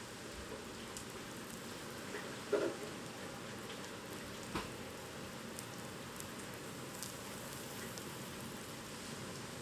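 Steady typhoon rain falling, with scattered drips ticking. A brief louder knock about two and a half seconds in and a sharp click about two seconds later.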